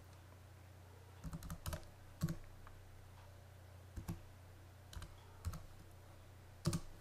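Computer keyboard being typed on: small groups of key clicks a second or so apart, over a faint low steady hum.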